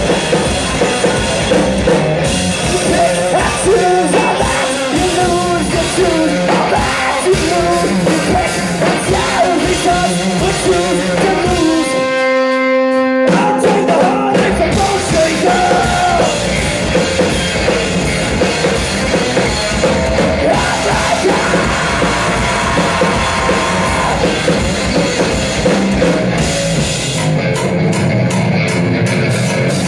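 Live rock band: electric guitar and drum kit with a lead singer. About twelve seconds in the drums and low end drop out for about a second while a single held note rings on its own, then the full band comes back in.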